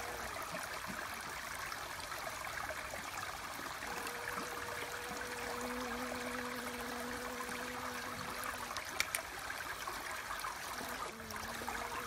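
Running water babbling steadily, with a faint steady hum that comes and goes and a small click about nine seconds in.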